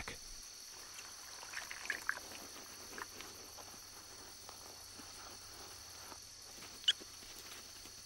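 Faint, steady high-pitched chorus of crickets, with faint rustling about two seconds in and a single short, sharp sound near the end.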